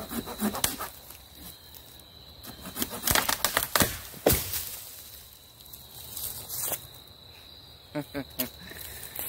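A Sheffield folding pruning saw rasps through a dead branch in short strokes. About three seconds in, the branch breaks through with a loud crack and crashes down through leaves and twigs.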